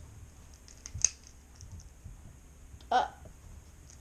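Small plastic clicks from a Rubik's cube as its last pieces are pushed back into place and the faces are turned, with a sharper click about a second in. A brief louder sound comes about three seconds in.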